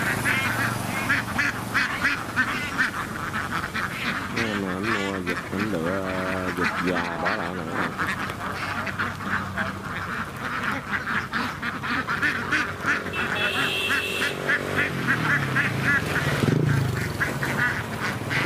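A large flock of domestic laying ducks quacking continuously, hundreds of calls overlapping into a dense, unbroken chorus.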